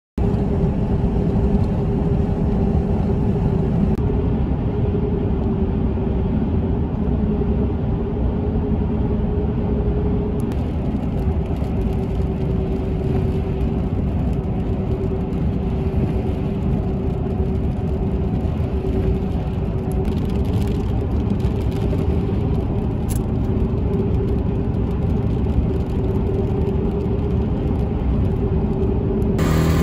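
A car driving along a paved highway, heard from inside the cabin: a steady rush of tyre and road noise with a constant hum.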